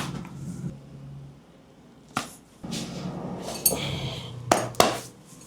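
A few sharp smacks: one about two seconds in, then two close together near the end, over a low steady hum.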